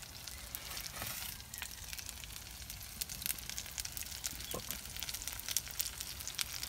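Mint burgers sizzling in a frying pan, with a constant fine crackle and spit of fat.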